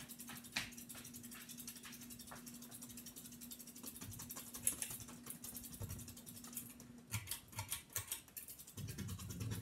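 Ceiling fan motor running with a steady low hum and scattered light ticks. The hum cuts off about seven seconds in and a few sharp clicks follow, then a low rumbling noise starts near the end.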